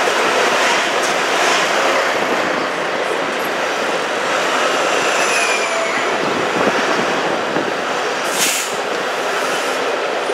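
TTC streetcar running on street track, heard from aboard: steel wheels rumbling on the rails with faint wheel squeal, as a second streetcar passes close alongside at the start. A brief hiss comes near the end.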